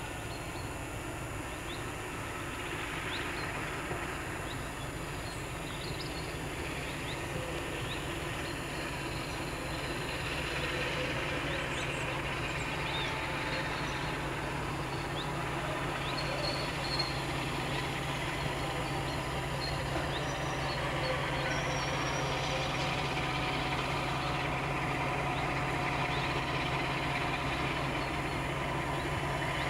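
Class 52 'Western' diesel-hydraulic locomotive D1062 approaching at low speed, its low engine drone growing steadily louder as it nears. Birds chirp briefly over it.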